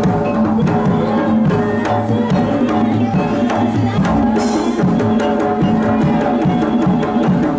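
Jaranan gamelan accompaniment: hand drums keep a driving, even rhythm under sustained pitched instrument tones.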